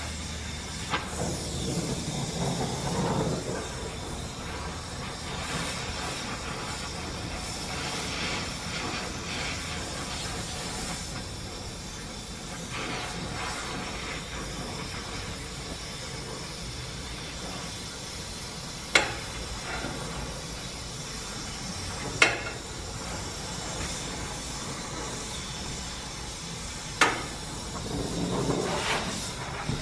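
Gas torch flame hissing steadily as it heats steel rod for bending into chain links in a jig. Three sharp knocks cut through it in the second half.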